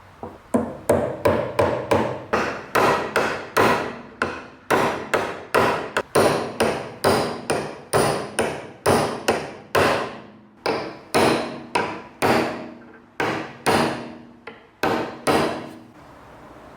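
A hand hammer striking repeatedly, roughly two blows a second, each blow ringing briefly before the next.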